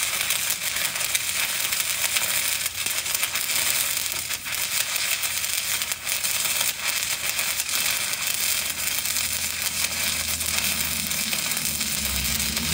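Stick (shielded metal arc) welding arc crackling and sizzling steadily as a bead is run on steel plate.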